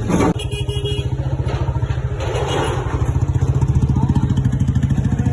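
The diesel engine of a demolition bulldozer running with a steady, pulsing drone that grows louder after about two seconds, with a short thud right at the start.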